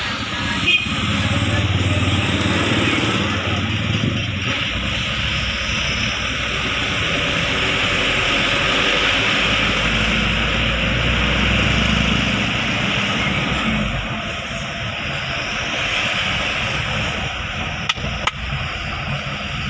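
Cargo truck's diesel engine running on the move, heard from inside the cab, with steady tyre and road rush; the engine note changes a few times as the truck slows and speeds up. A few light clicks near the end.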